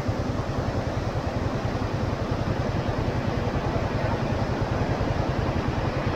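Steady engine and road noise of a car driving along a mountain road, a low rumble with a hiss of tyres and wind over it.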